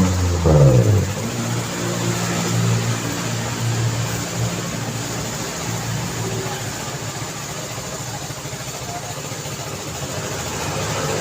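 Street traffic. About half a second in, a vehicle passes close and its engine note drops sharply as it goes by. Then engines run at a steady pitch over a constant hum of traffic.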